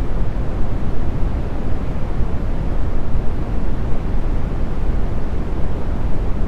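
Steady brown noise: an even, unbroken low rumble, strongest in the bass and thinning out toward the highs.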